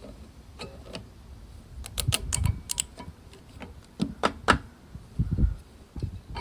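Sharp clicks and taps of hand tools working on a small engine's fuel line and carburetor, in clusters about two seconds in and again about four seconds in, followed by a couple of low knocks.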